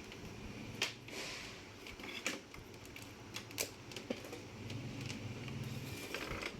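Dell Latitude E5420 laptop cooling fan running with a faint, steady low hum and no rattle, now that a scrap of paper that had jammed it has been removed. Several sharp clicks of the laptop being handled sound over it.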